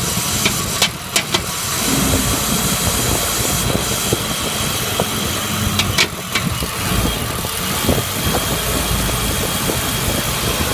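BMW M52TU B28 2.8-litre straight-six idling with irregular sharp knocks, a cluster about a second in and another about six seconds in. This is the cold-start knock that the owner traced to a cracked crankcase ventilation hose letting in unmetered air.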